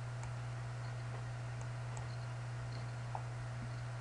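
Steady low electrical hum on the recording, with a few faint computer mouse clicks scattered through it.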